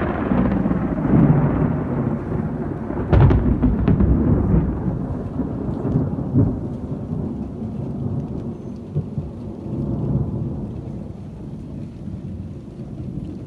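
A long roll of thunder, deep and rumbling, with sharper cracks about three and four seconds in, slowly fading away toward the end.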